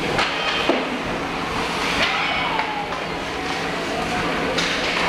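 Ice hockey practice in an indoor rink: skates scraping the ice under a steady arena rumble, with a few sharp clacks of sticks and pucks against the ice and boards.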